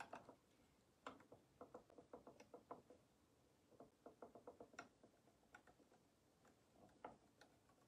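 Faint ticking from a hand-turned craft egg lathe as its knob is rotated, coming in runs of quick clicks about six or seven a second.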